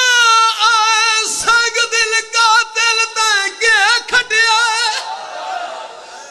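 A zakir's solo male voice singing a mourning lament through a PA microphone, with high, long-held notes and wavering ornaments. The voice stops about five seconds in, and a fading echo is left.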